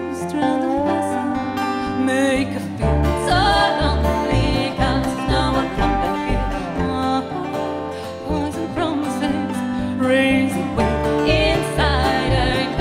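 Live acoustic bluegrass band playing: fiddle, dobro, acoustic guitar, banjo and upright bass together, the bass carrying strong low notes under the melody.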